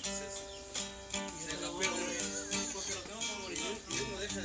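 Music with plucked strings and held, sustained notes.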